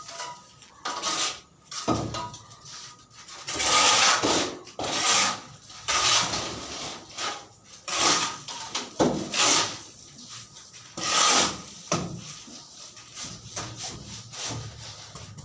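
Rough scraping strokes of a hand tool worked back and forth over wood, repeated irregularly about once a second with short pauses between.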